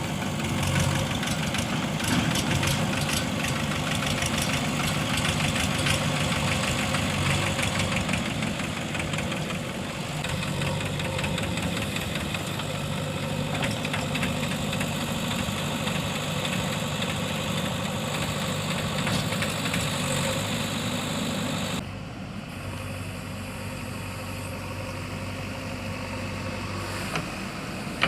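Diesel engine of a JCB 3DX backhoe loader running steadily with a fast, knocking diesel clatter. About three-quarters of the way through, the sound drops suddenly to a quieter, duller running.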